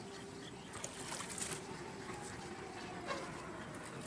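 Light splashing and trickling of pond water as hands move in it, with a few small splashes about a second in.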